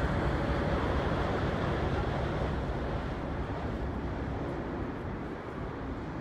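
Steady low engine rumble with wind on the microphone, easing off a little toward the end.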